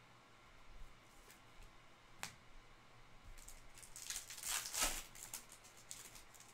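Sleeved trading cards being handled and flipped off a stack: a single click a couple of seconds in, then a short burst of plastic rustling and sliding about four to five seconds in.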